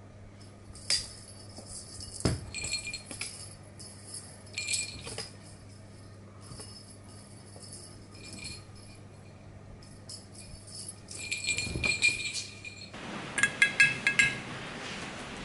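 Small bell on a cat's collar jingling in irregular bursts as the cat moves about and pounces after a toy. Near the end, a spoon clinks a few times in quick succession against a ceramic bowl.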